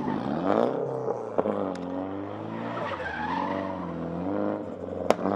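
Nissan Silvia S14 drift car's SR20 engine revving up and down as the car drifts, with tyres squealing. Two sharp exhaust backfires crack out, one about a second and a half in and a louder one near the end.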